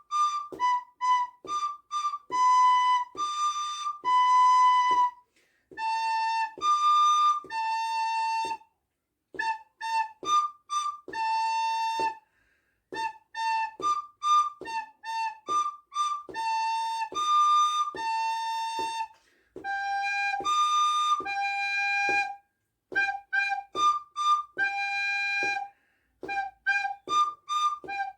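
Recorder playing a slow beginner's exercise melody on the notes G, A, B, C, high C and D: phrases of short tongued notes alternating with longer held notes, with short breaks between phrases.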